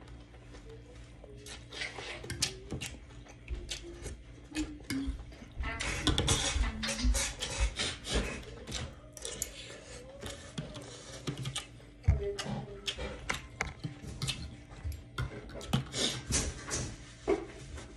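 Eating noodle soup: slurping noodles and chewing, with small clicks and scrapes of a metal spoon against the bowl. The noisiest stretches come about six seconds in and again near the end.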